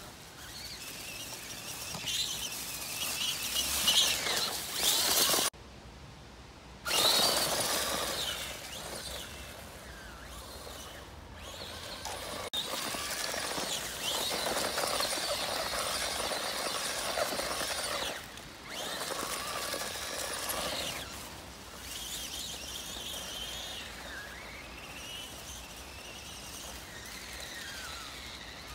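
Electric motor and gears of a Traxxas 1/18 Teton RC monster truck whining as it drives over rough ground, the pitch rising and falling with the throttle. The sound cuts off abruptly about five seconds in and returns suddenly a second and a half later.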